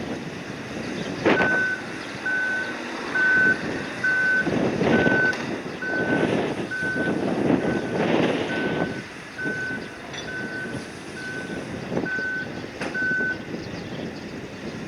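Warning beeper on the cargo-handling machinery, a reversing-style alarm sounding short even beeps at one pitch about once a second, stopping near the end. Under it a rushing noise swells and fades in waves.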